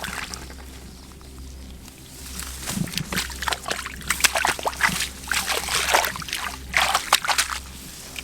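Shallow water sloshing and splashing as it is stirred by hand, in irregular strokes that grow busier about two and a half seconds in.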